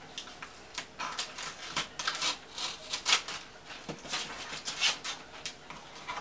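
Fingernails scratching at and peeling packing tape on a cardboard shipping box that is stuck fast: irregular crackles and scrapes.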